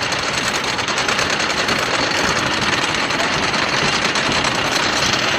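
Wooden racing roller coaster's train giving a steady, rapid mechanical clatter as it runs, heard up close from on board.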